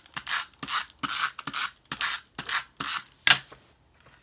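Patterned paper and cardstock rubbed by hand: a run of quick rasping rubs, about three a second, with a sharper one a little after three seconds, then they stop.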